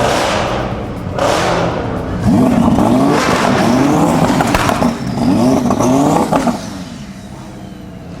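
Sports car engines revving and accelerating hard, the engine pitch climbing again and again in quick sweeps, then easing off about seven seconds in.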